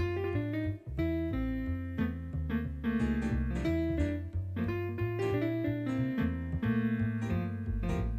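Piano music: a busy melody of short notes over low, held bass notes, as a silent-comedy accompaniment.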